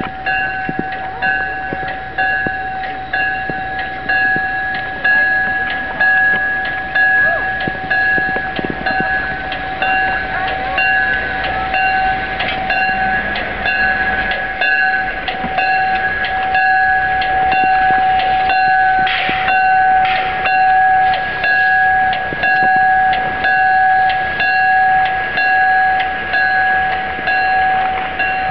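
A railway bell ringing at an even beat of one to two strokes a second, its ring carrying between strokes, as a VIA Budd Rail Diesel Car pulls into the station. The railcar's diesel rumble sits underneath and drops away about halfway through.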